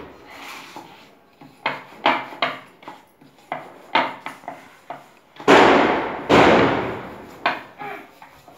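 Rolling roti by hand: a wooden rolling pin knocking and clattering against the rolling board and steel plates in a string of sharp knocks. Two much louder clangs come about five and a half and six and a half seconds in, each with a ringing tail.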